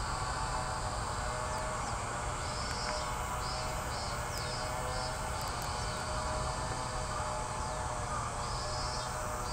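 Insects calling: high-pitched pulsed chirps repeating in short runs of three or four, over a steady low background hum, with a few faint short chirps.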